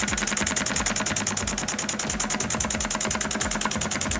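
1931 IND-X 200 electric toy steam engine freshly started and running, its brass slide-valve cylinder puffing steam in a fast, even chuff as the brass flywheel spins, over a steady low hum.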